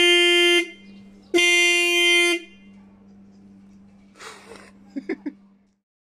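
A 12V Ring low-note disc car horn fitted to a Suzuki SV1000 motorcycle, sounded in two blasts of a steady tone: the first cuts off about half a second in, the second lasts about a second.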